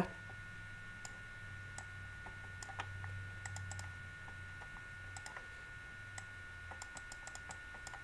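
Faint computer mouse clicks, about a dozen at irregular intervals, over a steady low electrical hum and a faint steady whine.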